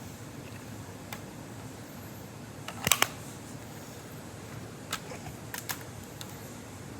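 Sharp clicks and snaps from a Lego AR-15 model being handled, the loudest a quick double snap about three seconds in, with a few lighter clicks scattered after it. A steady background hum runs underneath.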